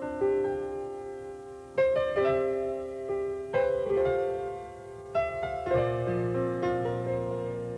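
Solo piano playing slow chords, each struck and left to ring and fade before the next, a new chord or note coming every one to two seconds.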